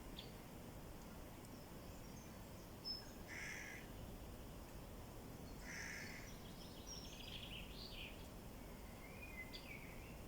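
Wild birds calling and singing now and then: two short harsh calls about three and six seconds in, a quick run of notes shortly after, and thin falling whistles near the end, over a steady low background hum of open air.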